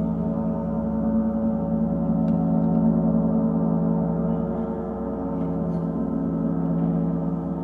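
Gong ringing in a long sustain, a dense cluster of many steady overlapping tones that swells gently and ebbs, with no fresh strike.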